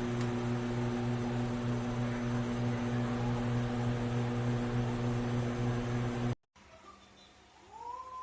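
Sharp R-32E(S) microwave oven running: a steady electrical hum with fan noise that cuts off suddenly about six seconds in. A cat meows briefly near the end.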